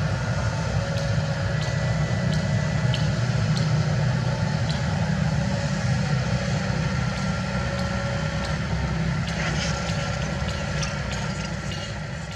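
Kobelco SK75 excavator's diesel engine running steadily under a low, even drone, with a faint hydraulic whine and scattered light clicks, fading down near the end.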